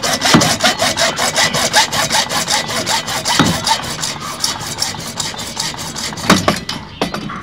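Hacksaw cutting through a blue PVC water pipe in quick, even back-and-forth strokes, the sawing dying away just before the end.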